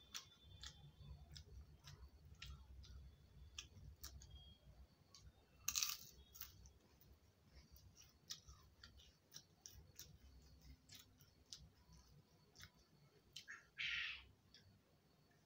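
Faint close-up eating sounds from a person chewing: soft mouth clicks and smacks scattered throughout, with two short, louder hissing sounds, one about six seconds in and one near the end.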